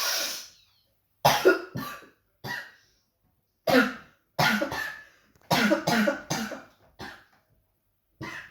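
A person sniffs hard once, then coughs repeatedly in short clusters, about ten coughs in all.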